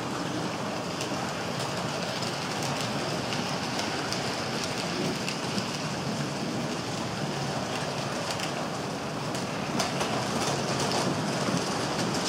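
Model railway train of four-axle Shell tank wagons rolling past on the track: a steady rolling rush with many small, irregular clicks of the wagons' wheels on the rails.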